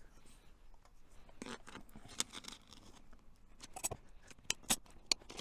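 An inflatable air wedge being pumped up by hand under a window frame: irregular soft squeezes and rubbing, with a few sharp clicks near the end.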